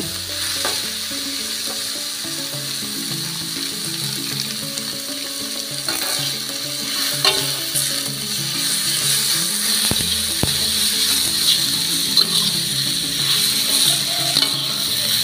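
Food sizzling in a hot wok as sliced cashew apples and omelette strips are stir-fried, with a metal spatula scraping and clacking against the pan now and then.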